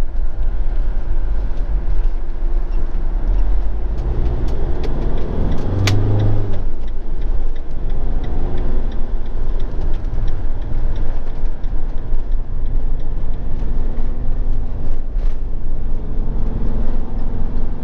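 Motorhome on the move: steady low engine and road rumble, swelling for a few seconds about four to seven seconds in, with one sharp tick near the middle.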